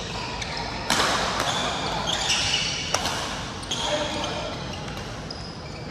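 Badminton rally in a large echoing hall: sharp racket strikes on the shuttlecock about a second in and again near three seconds, with short shoe squeaks on the court floor between them.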